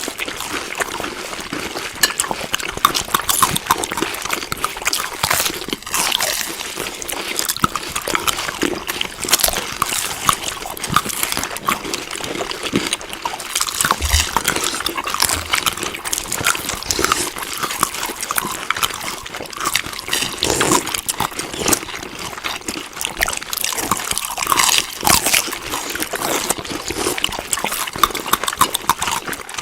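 Close-miked chewing of food: a continuous wet, crackling run of smacks and clicks.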